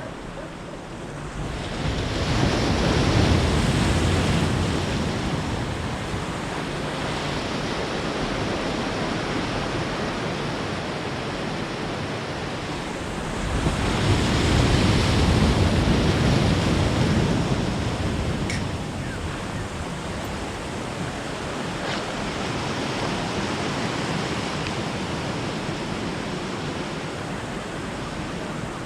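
Sea waves rushing and breaking, swelling louder twice, with wind buffeting the microphone.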